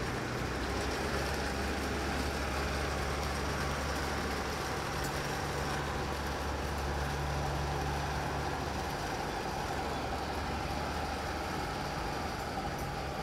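Mercedes-Benz G-Class engine running steadily at low revs while the SUV crawls slowly up a steep steel ramp.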